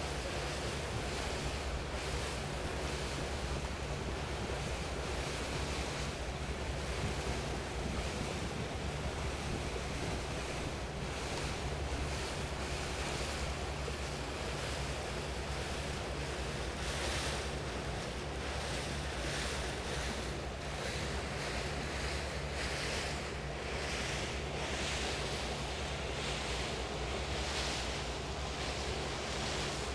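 Paddle boat under way: a steady low engine hum beneath water rushing past the hull and wind on the microphone, with the rushing hiss swelling and easing in gusts through the second half.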